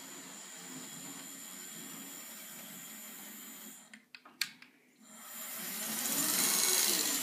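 Hornby OO gauge model trains running on the track: a steady whirr of small electric motors and wheels on the rails. About four seconds in it drops away with a few sharp clicks, then builds to a louder whirr over the last couple of seconds.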